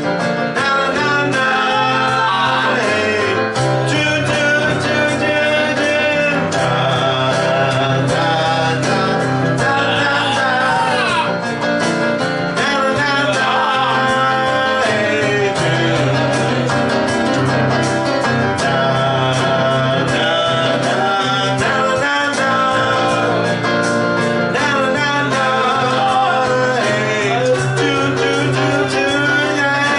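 Music: a song with a singing voice over guitar accompaniment, running steadily.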